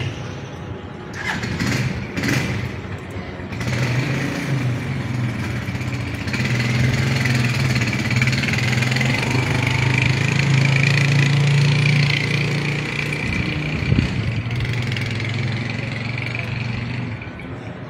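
A motor vehicle engine running with a steady low hum that sets in a few seconds in, is loudest a little past the middle and eases off near the end. A few short knocks come before it.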